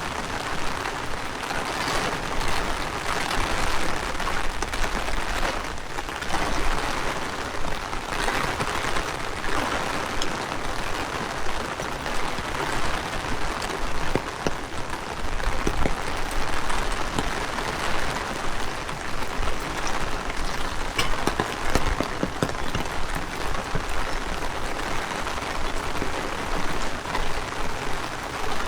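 Heavy rain falling steadily, a dense hiss that swells and eases in strong wind, with low wind rumble on the microphone.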